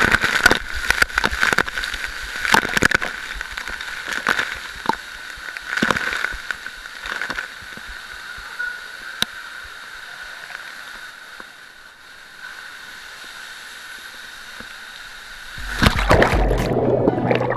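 Water rushing and sloshing around a rider sliding down an enclosed tube water slide, with repeated sharp knocks as the rider bumps along the tube. Near the end a sudden louder burst of splashing as the rider lands in the pool.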